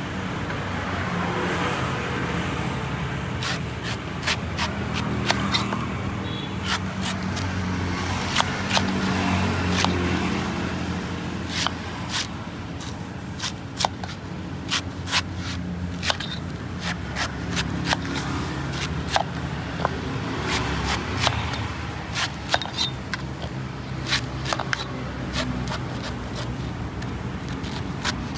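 Large knife chopping and shaving the husk off a young coconut on a wooden chopping board: a run of sharp, irregular chops and scrapes over a steady low rumble.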